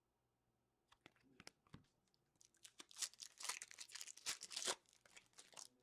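Quiet handling of a trading-card pack: a few light clicks, then a spell of crinkling and tearing through the middle as the foil pack wrapper is ripped open.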